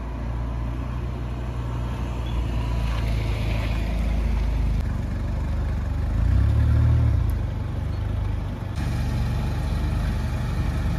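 1989 Volkswagen Cabriolet's four-cylinder engine running as the car drives in at low speed, with a short swell in engine sound about six seconds in.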